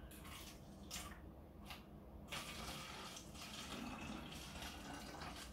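Water poured from a plastic bottle into a narrow-necked plastic water bottle: a few short splashes at first, then, a couple of seconds in, a steady stream filling the bottle.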